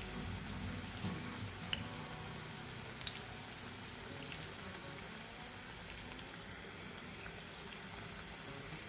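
Cabbage fritters deep-frying in hot oil: a steady sizzle with scattered small pops and crackles, a few sharper ones in the first three seconds.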